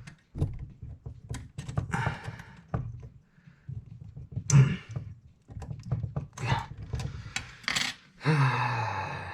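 Small metal parts of a mechanical clock movement clicking and tapping as they are handled and worked into place, with a few quiet vocal sounds from the man and a longer low falling vocal sound near the end.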